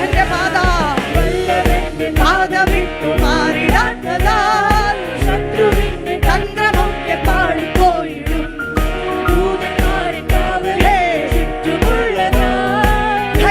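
Christian worship song: a voice singing a melody over a steady beat of about two strokes a second.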